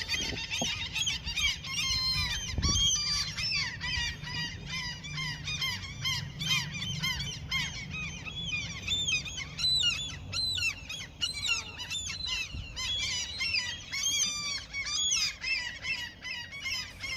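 Seagulls calling constantly, many short rising-and-falling cries overlapping one another with no break.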